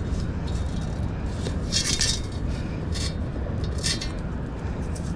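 Sand and small stones rattling in a metal beach-detecting sand scoop (CKG 6x9), shaken in about five short bursts to sift out a coin, over steady low background noise.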